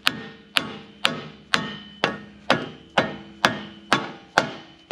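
Dead blow hammer tapping a new front wheel hub bearing assembly into the steering knuckle to seat it. The blows come evenly, about two a second, roughly ten in all, each followed by a short ring from the hub.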